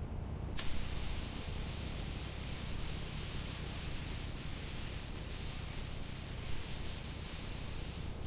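Pressurised spray hissing steadily over a low rumble. The hiss starts about half a second in.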